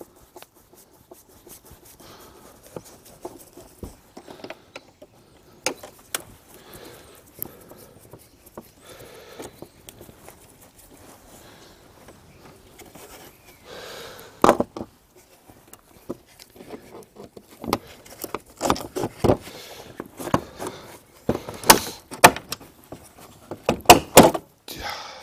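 Hand work on a car's air filter box with a screwdriver: scattered clicks, knocks and rattles as the housing clips and cover are worked loose. The sounds are sparse at first and come thicker and louder in the second half.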